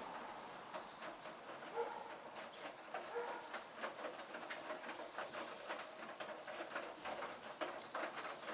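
Hoover front-loading washing machine drum turning a wet load of laundry, with a continuous irregular patter of soft clicks and knocks as the clothes tumble.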